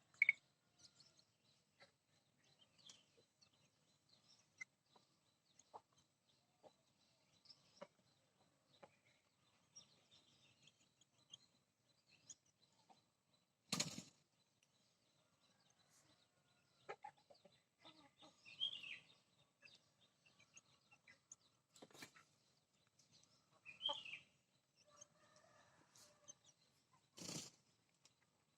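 Backyard chickens clucking softly now and then, with many faint ticks and a few sharp knocks.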